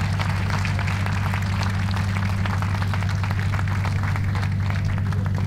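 Audience applauding, a steady patter of many hands clapping that thins toward the end, over a steady low hum.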